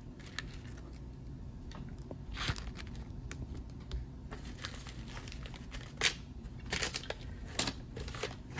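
Plastic packaging crinkling and rustling in short, irregular bursts as packaged items are handled and laid out on a table.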